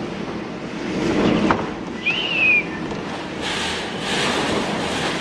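Hurricane-force wind blowing hard, a steady rushing noise, with a brief high whistle that rises and falls about two seconds in.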